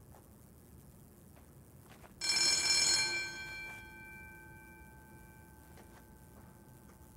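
A doorbell rings once, loudly for about a second, then its tones ring out and fade over the next few seconds.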